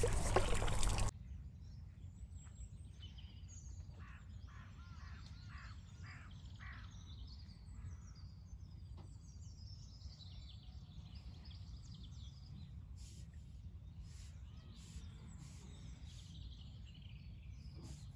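A second of loud, close rustling handling noise, then quiet lakeside ambience with birds chirping and calling, including a run of about five short calls a few seconds in.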